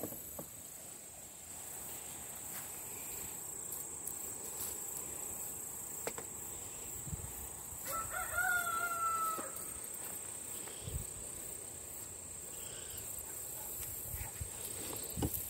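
A rooster crows once about eight seconds in, a drawn-out call of about a second and a half that sags slightly in pitch at the end. A steady high insect buzz and occasional light rustling of garden plants sit underneath.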